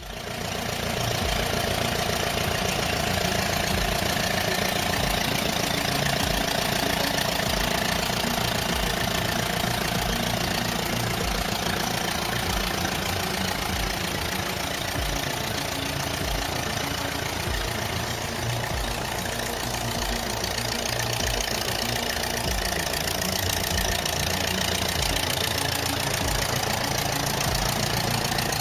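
A vehicle engine idling steadily, with a regular low knock, coming in abruptly out of silence.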